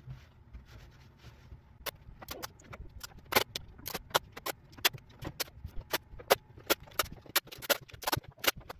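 Clear plastic sheet being pressed and smoothed by hand over a jigsaw puzzle, crackling with sharp irregular clicks about three or four a second from about two seconds in.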